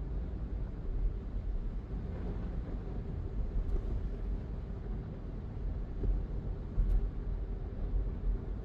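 Steady low road and engine rumble from a car driving, with a faint steady hum and a short thump about seven seconds in.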